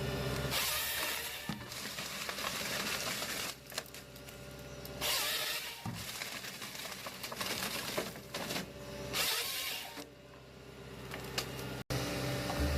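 Forestry machinery with a steady low engine hum, broken three times by loud hissing bursts of one to two seconds each, as of cutting. It breaks off suddenly near the end, and a different machine sound follows.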